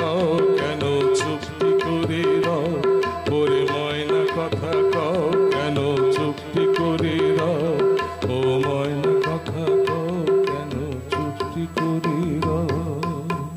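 Harmonium playing a repeating melodic phrase over a steady tabla rhythm, the instrumental close of a Bengali song.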